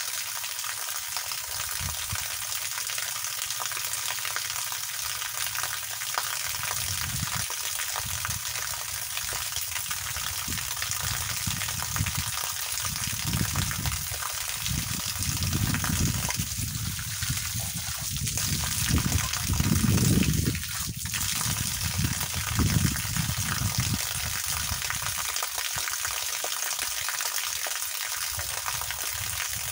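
Water spraying steadily from a hose pipe in a hissing stream that splashes down, with louder low rumbling through the middle stretch.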